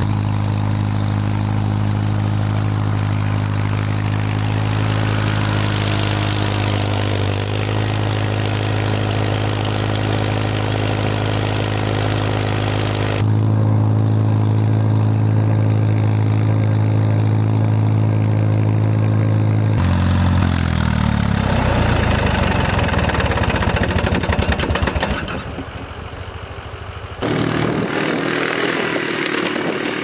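Farmall M tractor's four-cylinder engine running at a steady speed while pushing snow with its front loader. The engine gets louder about 13 seconds in. Around 20 seconds in its pitch drops and the sound turns rougher, with a quieter stretch of a couple of seconds near the end.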